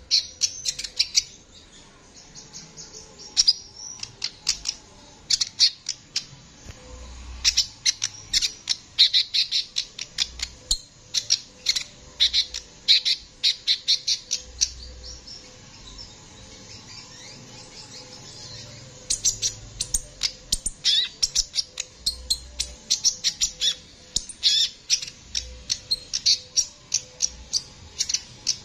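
Male kolibri ninja sunbird singing: fast runs of sharp, high chirps in bursts, with short pauses between phrases.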